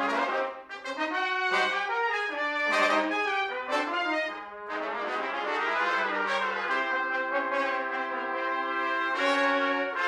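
Brass sextet of two C trumpets, two B-flat trumpets and two flugelhorns playing together: a run of short accented chords for the first few seconds, then long held chords in the second half.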